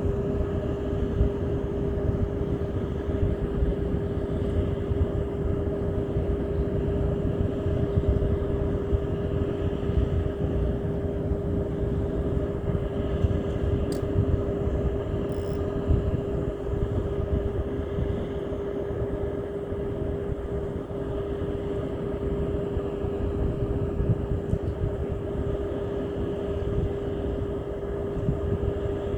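An engine running steadily at a constant pitch, with a dense low rumble underneath.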